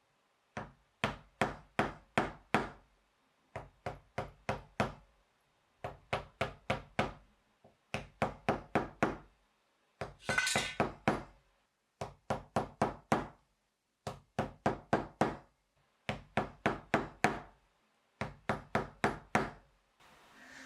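Mallet striking a leather stitching chisel (pricking iron) to punch the stitching holes, in quick runs of about five sharp blows, with short pauses between runs. A brief scraping rustle comes about ten seconds in.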